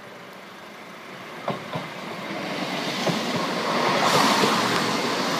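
London Midland Class 170 Turbostar diesel multiple unit approaching and passing at speed. A rising rush of wheel and engine noise grows loudest from about four seconds in, with a couple of sharp clicks about a second and a half in.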